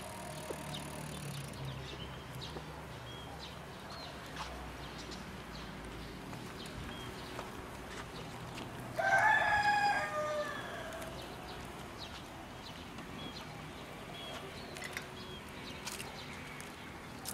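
A rooster crows once, about nine seconds in, a loud pitched call lasting about a second and a half. A few faint high chirps are scattered around it.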